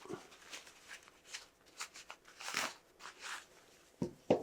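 Soft rustling and crinkling as the small fabric jacket of a 1/6 scale action figure is handled and opened, in scattered short bursts with a few sharper handling noises near the end.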